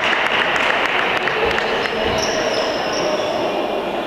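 A basketball bouncing a few times on an indoor court, dull thumps over the steady murmur of a sports hall. A thin high squeak comes in about two seconds in.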